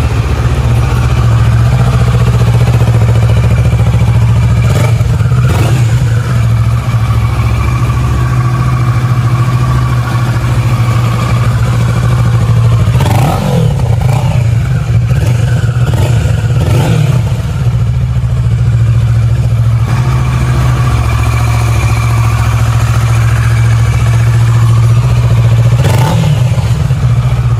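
Kawasaki Versys 650 parallel-twin engine through its stock exhaust, running loud and steady. The pitch swoops briefly a few times, about halfway through and near the end.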